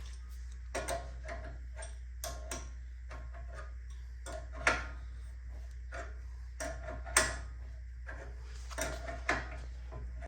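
Scattered sharp metal clicks and clinks of hand tools working on steering parts, some ringing briefly, over a steady low hum.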